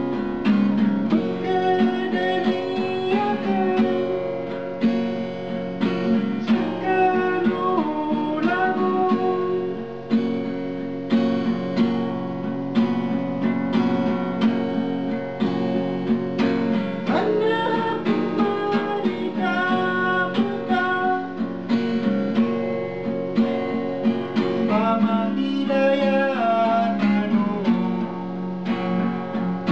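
Acoustic guitar strummed steadily, with a melody line that glides and bends in pitch above the chords at several points.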